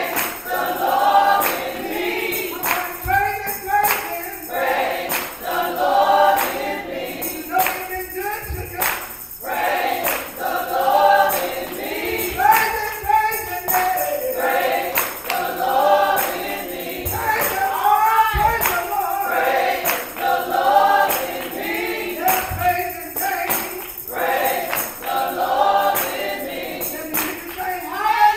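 Gospel choir of women singing together, one lead voice on a microphone over the group, with hand clapping keeping the beat.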